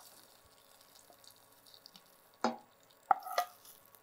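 Wooden spatula scraping and knocking ghee-roasted cashews out of a frying pan into a pot of payasam. A few short, sharp knocks and clicks come about two and a half and three seconds in.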